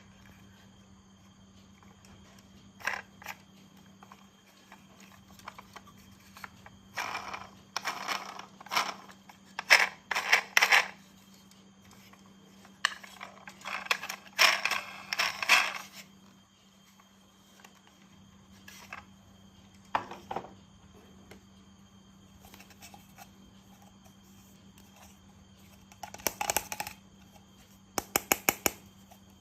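Plastic toy train pieces being handled and clicked together: irregular bursts of clattering and rattling with pauses between them, and a quick run of sharp clicks near the end.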